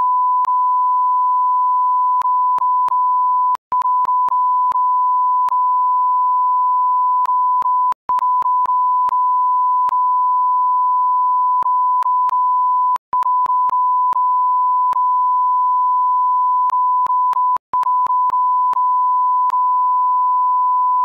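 Censor bleep: a steady, loud beep tone held almost without a break, dropping out briefly four times, with small clicks scattered through it at the splices.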